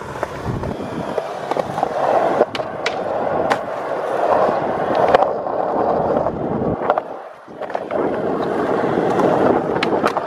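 Skateboard wheels rolling on smooth concrete, with a few sharp clacks scattered through. The rolling drops out briefly about seven seconds in, then picks up again.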